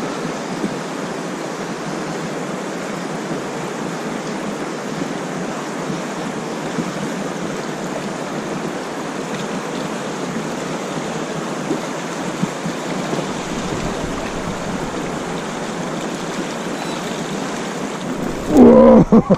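Steady rushing of fast, choppy river water and wind around a small inflatable boat. Near the end, a sudden loud burst with pitched tones cuts in.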